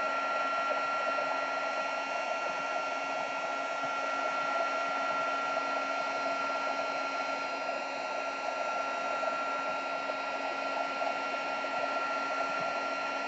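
Craft heat embossing tool blowing hot air steadily: an even rush of air with a high, constant whine from its small fan motor.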